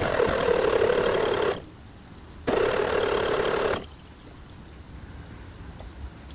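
1987 Ford F-150's starter cranking the engine twice, about a second and a half each time with a pause between, without the engine catching. These are the first start attempts with a new ignition switch after the truck has sat for 15 years.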